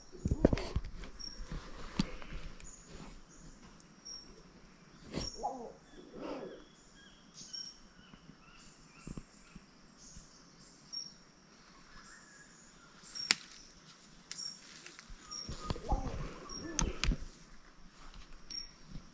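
Rainforest ambience: a bird repeating a short high chirp every second or so, with rustling and a few sharp clicks close by.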